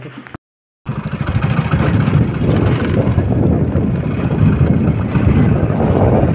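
A motor vehicle engine running, heard as a loud, steady rumble that starts just under a second in, after a brief gap.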